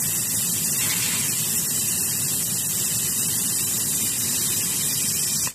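Air hissing steadily out of a tire through a quick-connect automatic tire deflator set to 30 psi, its deflation started by pulling the plunger. The hiss cuts off suddenly near the end.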